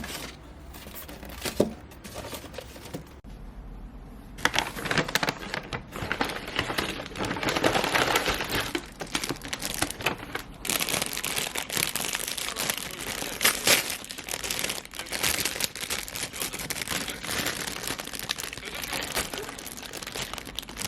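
Plastic packaging being crinkled and handled: an irregular, dense crackling that gets busier about four seconds in.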